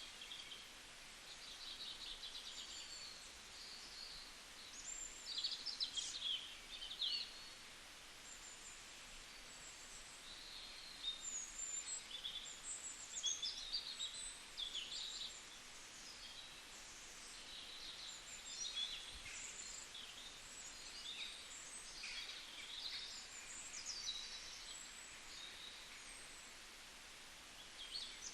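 Several songbirds chirping and singing, with short high calls and trills coming one after another, over a faint steady hiss.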